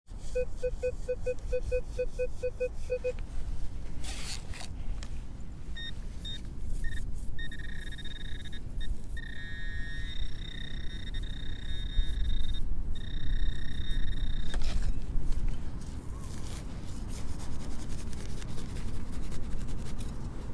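A Minelab Equinox metal detector beeping rapidly in a low tone, about four beeps a second, for the first three seconds. From about six seconds in, a handheld pinpointer sounds a steady high tone for roughly nine seconds as it is held over a target in the turf. A low rumble runs underneath.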